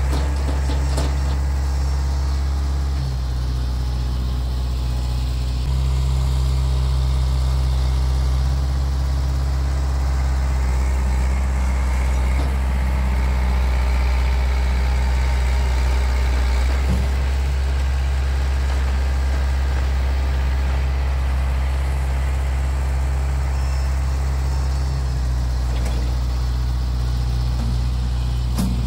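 Kubota M5040 tractor's four-cylinder diesel engine running as the front loader works a dirt pile, a steady low drone that shifts in pitch and loudness a few times as the load and throttle change. A few faint knocks come through.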